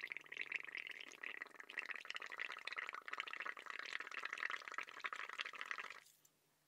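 Air blown through a straw into a cup of soapy paint mixture (paint, dish soap and water), giving a steady crackling, fizzing bubbling as a mound of foam builds over the cup. It cuts off suddenly about six seconds in.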